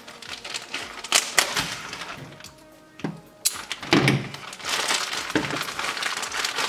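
Thin plastic ration bag being cut open, with a few sharp snips or snaps in the first seconds and one more about three seconds in, then dense crinkling and rustling of the plastic as a hand works into the bag.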